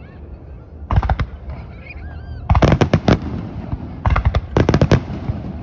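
Fireworks going off: a single bang about a second in, then rapid runs of sharp bangs and crackles, a few seconds apart.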